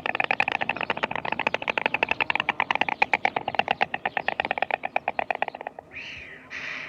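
An animal's rapid chattering call, an even train of about ten pulses a second that stops near the end, followed by a brief, different call.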